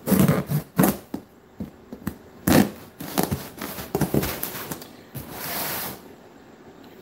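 Cardboard shipping box being opened: a knife slitting the packing tape and the cardboard being handled, a run of scrapes and knocks over the first four seconds or so. Just after five seconds comes a rasping hiss of about a second.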